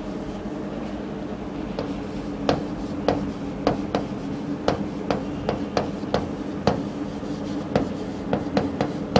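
Chalk writing on a chalkboard: irregular sharp taps as strokes begin, one or two a second, with light scraping, over a steady low hum.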